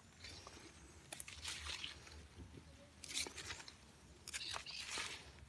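Faint rustling and several brief crackles of bell pepper leaves and stems as side shoots are pulled off the plant by hand.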